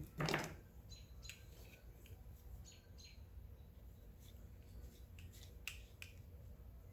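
Faint birds chirping: short high chirps scattered here and there. A short burst of hiss-like noise comes right at the start, and there are a few faint clicks.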